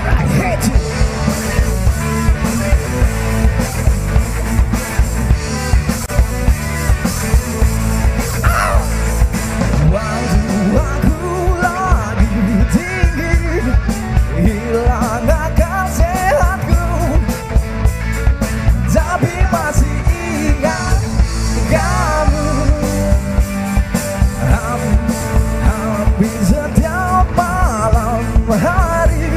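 Rock band playing loudly, with a drum kit keeping a steady driving beat under electric guitars and a wavering melodic line over them.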